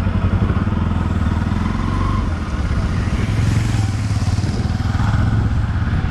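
Motorcycle engine running at low revs with a steady low throb, as the bike rolls slowly.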